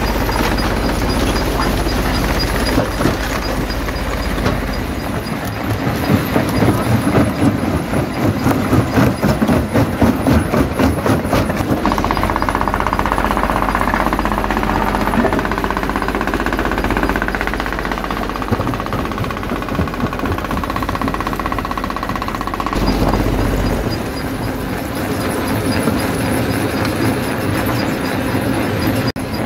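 Jaw crusher running and crushing stone: a loud, continuous din of rock cracking and grinding, with a stretch of rapid knocking in the middle. The sound changes abruptly twice.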